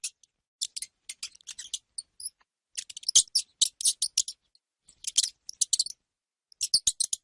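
Hamster squeaking: quick runs of short, very high-pitched squeaks in several clusters with pauses between them, and a few sharp clicks.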